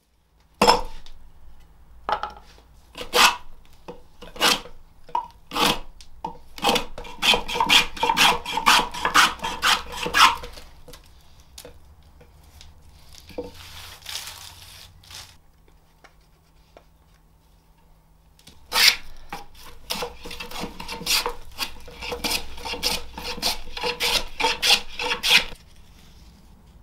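Hand plane taking quick strokes across a quartersawn jacaranda blank. The strokes come in two runs, the first several seconds long and reaching about three strokes a second, the second starting after a pause of several seconds.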